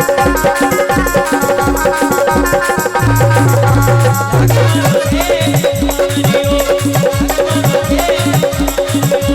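Instrumental passage of a Rajasthani bhajan with no singing: a fast, even hand-drum beat under a melodic instrument line. The melody changes about four and a half seconds in.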